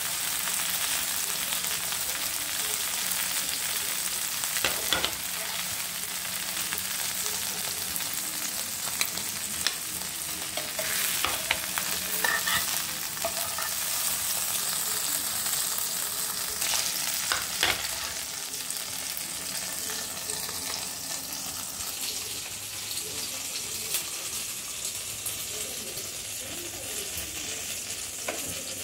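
Pomfret fish frying in shallow oil in a nonstick pan, a steady sizzle, with a spatula scraping and knocking against the pan a few times as the pieces are turned and lifted out. The sizzle eases a little in the second half.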